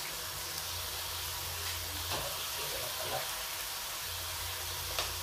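Shrimp and chicken livers sizzling steadily in a wok, with a few faint ticks and a low hum underneath.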